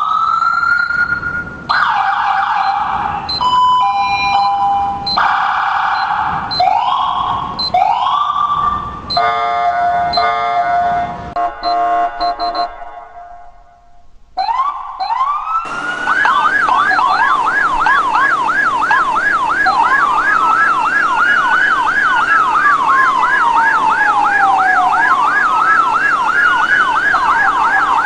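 Police car electronic sirens. First comes a run of short rising whoops about once a second or so, broken by a steady horn tone, and this fades out briefly. Then a fast yelp sweeping up and down a couple of times a second starts, layered over a slower rising and falling wail.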